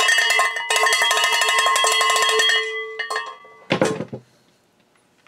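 Handheld cowbell shaken and struck rapidly, ringing with several steady tones, with a short break just under a second in. The strikes stop about two and a half seconds in. One more single strike follows, then a short clunk near four seconds in.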